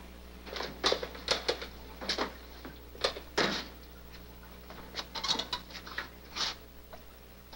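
Short, irregular scuffling and slapping noises, about a dozen spread over several seconds, as a plucked chicken is swung and handled in the cook's hands.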